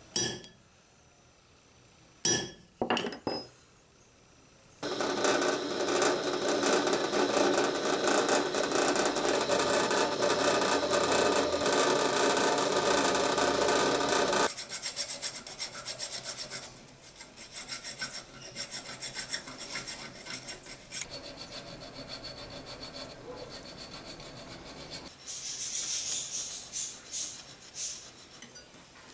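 A hammer knocks a centre punch into an aluminium guard block, once and then about three quick taps. Next comes a drill boring through the aluminium with a steady grinding noise that stops abruptly after about ten seconds. A file then scrapes back and forth in the drilled hole, irregular and quieter, with a louder spell near the end.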